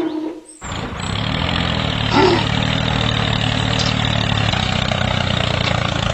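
An engine-type motor running steadily, cutting in abruptly after a short break about half a second in, with a brief squeak about two seconds in.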